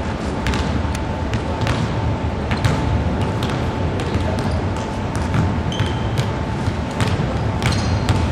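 Basketballs bouncing on a hardwood gym floor: scattered, irregular thuds over the steady rumble of a large sports hall.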